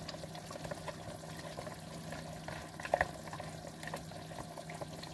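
A spoon stirring and scraping in a pot of simmering stew as tomato paste is worked in, with small clinks over a steady simmer and one louder knock about three seconds in.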